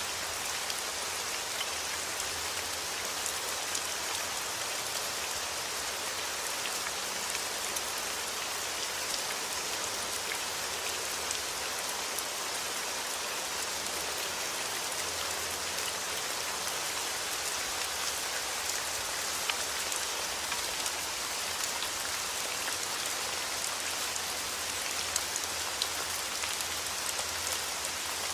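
Steady rain falling, a dense even patter with many small drop ticks and no thunder.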